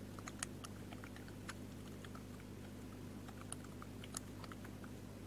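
Faint, irregular clicking of computer keyboard keys as a word is typed, over a low steady hum.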